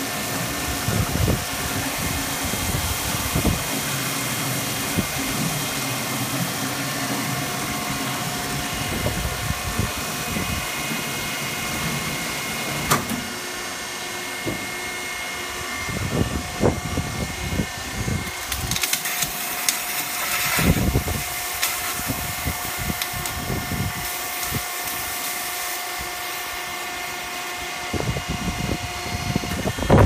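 HCC 150A hydraulic metal-chip briquetting press running: a steady motor and pump hum with a constant whine, broken by irregular low knocks and clunks, more frequent in the second half.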